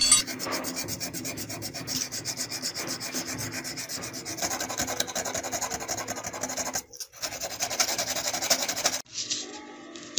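Quick back-and-forth hand sanding on the bare die-cast metal body of a toy ambulance, a dry rubbing rasp. There is a brief pause about seven seconds in, and the strokes stop about nine seconds in.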